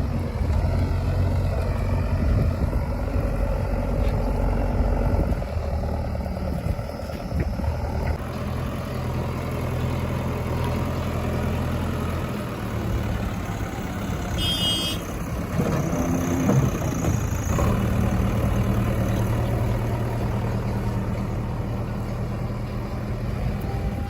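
Heavy diesel engines of a backhoe loader and tractors running steadily, the engine note shifting several times as the machines work under load.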